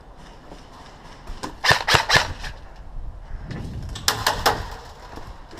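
Airsoft gun firing two short strings of quick shots: about three sharp cracks a second and a half in, then another three or four about four seconds in.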